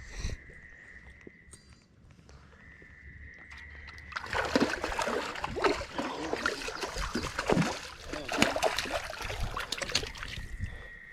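Close water splashing and sloshing, starting about four seconds in and lasting some six seconds, over a steady high-pitched trill that drops out while the splashing goes on.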